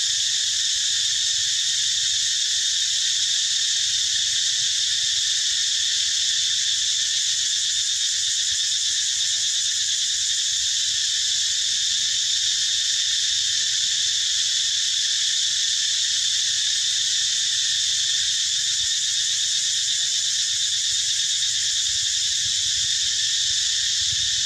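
Dense chorus of insects: a steady, high, unbroken buzzing drone.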